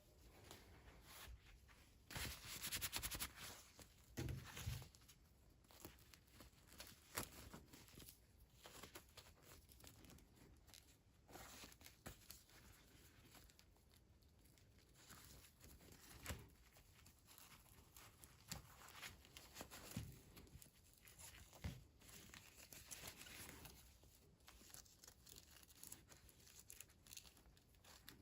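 Quiet, close unboxing sounds: packaging rustling and tearing, with scattered small clicks and taps. A longer crinkling burst comes about two seconds in, and a couple of soft thumps follow around four seconds.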